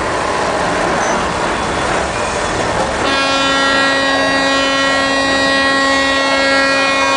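Special-effects sound on a staged disaster set: a noisy hiss, then about three seconds in a horn starts blaring one steady held note and keeps sounding.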